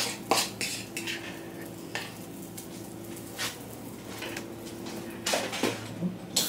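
A metal spoon knocking and scraping against a plastic mixing bowl as pancake batter is stirred, in scattered sharp clicks with a pair close together near the end.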